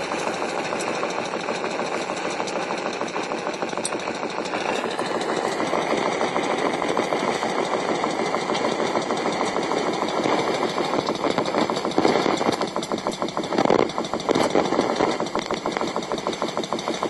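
A recorded machine noise from underground, played back through a small amplifier and speaker: a steady, fast mechanical pulsing, a little louder near the end. The listener takes it for a compressor running in a tunnel, likely working to deal with water.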